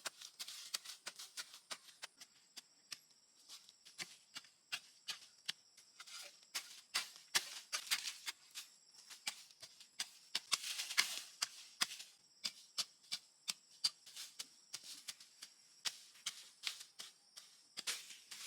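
A run of irregular sharp clicks and rustles, busiest in the middle, over a steady high-pitched hum.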